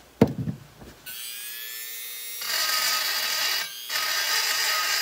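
A single knock, then a handheld rotary tool starts up about a second in, its whine rising as it spins up. It then grinds into a port of a cast-aluminium GT40 lower intake manifold, much louder and noisier, easing off for a moment before grinding again.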